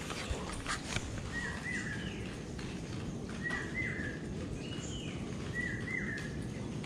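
A bird calling four times, each call a short pair of quick downward-bending chirps, over a steady low outdoor background noise.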